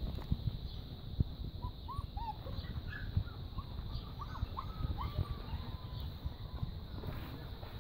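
Young puppies giving a string of short, high squeaks and whimpers, bunched in the middle of the clip, over a low rumble.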